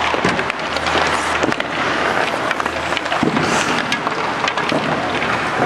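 Ice hockey practice on a rink: skates scraping and carving on the ice, with scattered sharp clacks of sticks and pucks, over a low steady hum.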